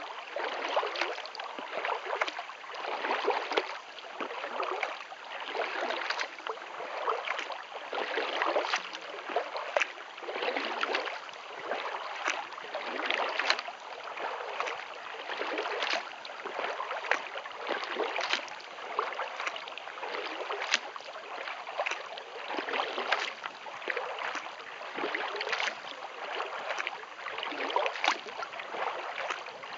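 Kayak paddle strokes in calm lake water: a steady rhythm of swishing splashes, about one stroke a second, with water dripping from the blades between them.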